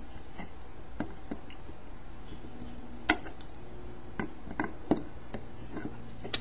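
Wire cutters snipping off the excess leads of newly soldered capacitors close to a circuit board: a scattering of sharp clicks, the loudest about three seconds in.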